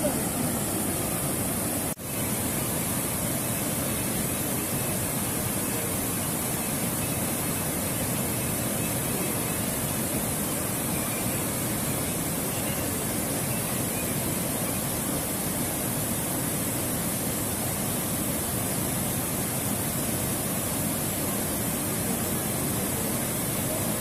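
Steady rush of river water pouring over a long weir, cutting out for an instant about two seconds in.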